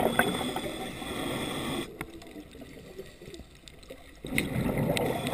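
Underwater water noise heard by a diver's camera: rushing, bubbling water in two bursts, one at the start and another about four seconds in, with a quieter stretch between and a few small clicks.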